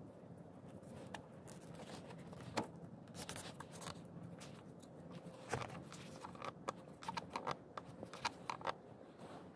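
Hands threading and knotting a braided nylon rope through a metal hook on a wooden post: rope rustling and sliding, with scattered light clicks of the hardware that come thick and fast between about five and nine seconds in.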